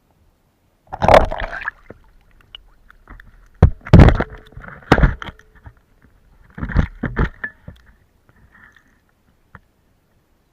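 Water sloshing and knocks against an underwater camera's housing in a pond: several loud, irregular bursts with deep thumps, then a single faint click near the end.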